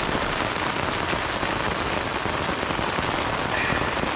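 Heavy rain pouring down steadily, an even rush of falling water with no let-up.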